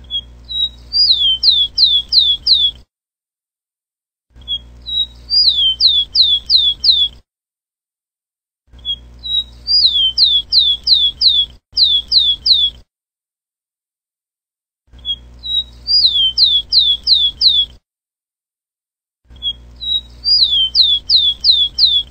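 Rufous-collared sparrow (tico-tico) singing its song five times. Each song is a short note or two followed by about six quick downslurred whistles, with a low hum behind each song and dead silence between songs.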